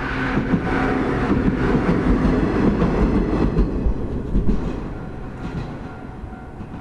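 A JR Ube Line train passing over a level crossing. Its running noise is loud at first and fades away over the last two seconds or so as the train moves off.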